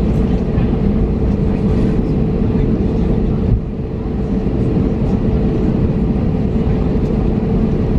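Airbus A321neo cabin noise while taxiing: the CFM LEAP-1A engines running at taxi power give a steady low rumble with a constant hum, and the level dips slightly about three and a half seconds in.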